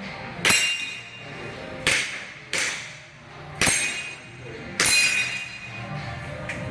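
Airsoft pistol shots at steel targets, each a sharp crack or clang with a short metallic ring. There are five, unevenly spaced, between about half a second and five seconds in.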